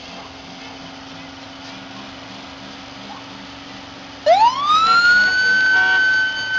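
A car engine runs steadily. About four seconds in, a police car siren switches on, sweeps up in pitch within about a second and then holds a loud, steady wail.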